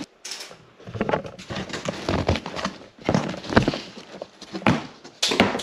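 Large cardboard shipping box being opened by hand: cardboard flaps scraping and knocking in an irregular run of short noises, with a few louder knocks.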